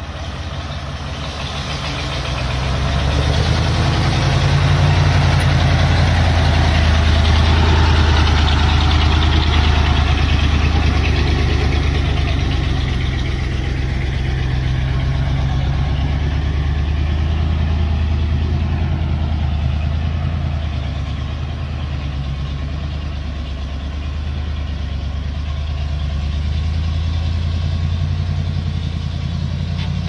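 Diesel engine of a heavily loaded log truck running under load as it crawls past at close range: a steady low drone that swells over the first few seconds and then holds.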